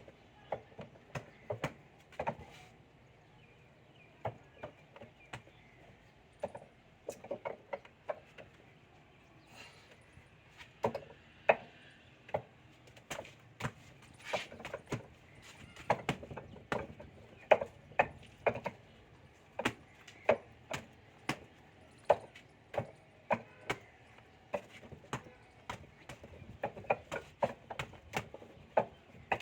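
Hands and forearms striking a Wing Chun wooden dummy: sharp wooden knocks in quick, irregular clusters of two to four, with short pauses between runs.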